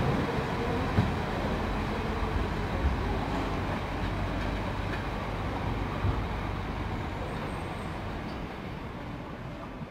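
Departing passenger train rolling away over the station tracks: a steady rumble from its carriages that fades gradually, with a couple of sharp wheel clacks over the rail joints or points.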